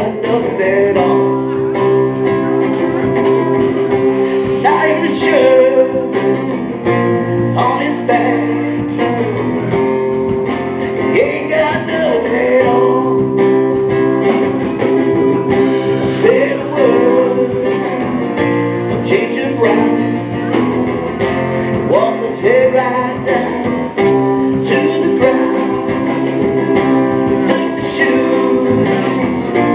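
Live rock band playing: guitar, bass and drum kit keep a steady beat while a male vocalist sings.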